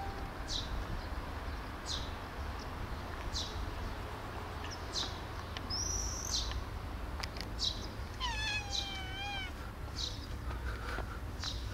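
A cat gives one long meow, about a second and a half, falling slightly in pitch, about eight seconds in.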